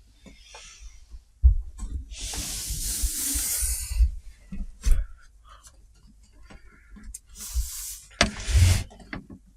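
Handling noise of a flat-screen TV being turned over on a workbench: stretches of scraping, rustling noise with several thumps, the longest scrape about two seconds in.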